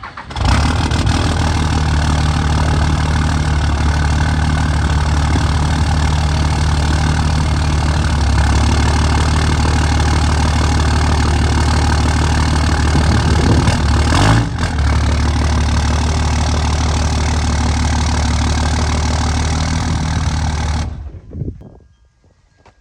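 Cummins inline-six turbo-diesel engine of a third-generation Ram pickup running steadily as the truck is pulled forward a short way, with a brief change about fourteen seconds in, then shut off about 21 seconds in.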